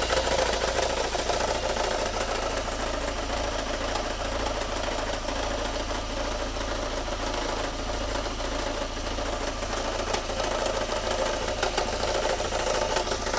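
Volkswagen GTI 1.8T turbocharged four-cylinder engine idling, with a fast, even ticking rattle over the running sound. The owner suspects the noise comes from a failing alternator.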